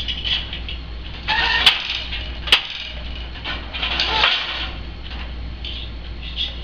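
Wooden countermarch loom at work: creaking as the treadles change the shed and the shuttle is passed, with two sharp knocks of the beater a little under a second apart.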